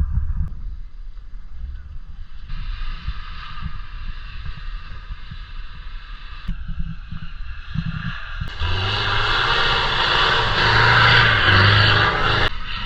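Off-road vehicle engine running under steady low rumbling and thuds. It gets louder and busier about eight and a half seconds in, then drops back near the end.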